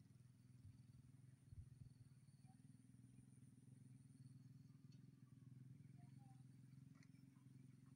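Near silence with a faint, steady low hum like a small engine running, and a couple of soft thumps in the first two seconds.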